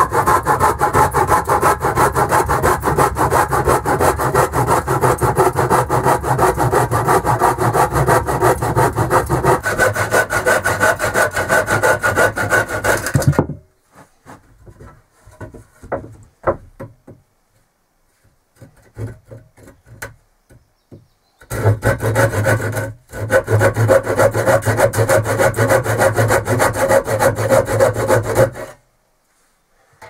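Hand saw cutting wooden boards in fast, steady strokes that stop about 13 seconds in. Then come scattered light knocks and clatter, and after that the sawing starts again for about seven seconds, with a short break in the middle.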